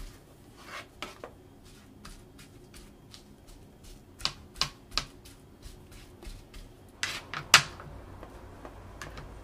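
Kitchen knife tapping and chopping on a plastic cutting board, mincing garlic, onion and oregano leaves: scattered sharp knocks, with a louder clack about seven and a half seconds in.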